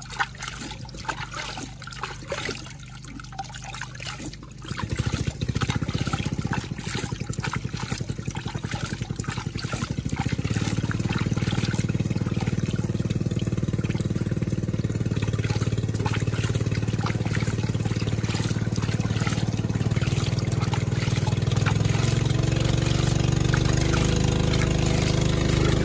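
Water sloshing and trickling as sand is swirled in a gold pan. About five seconds in, a loud, low, steady drone comes in and grows louder around ten seconds in.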